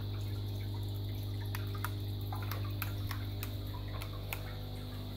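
Aquarium filters and pumps in a fish room: a steady low hum, with water trickling and many small irregular drips and splashes.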